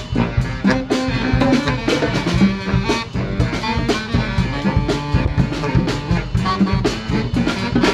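Brass band playing: horns over a steady drum beat.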